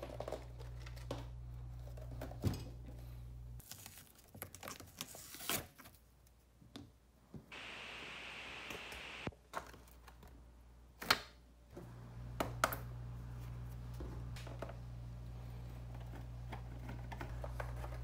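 Hands handling and taking apart an Ableton Push 2 controller: scattered clicks and knocks of the plastic casing being moved and set down, and about 8 s in a steady tearing hiss lasting a couple of seconds as adhesive is peeled off the underside. A low steady hum sits underneath at the start and through the last part.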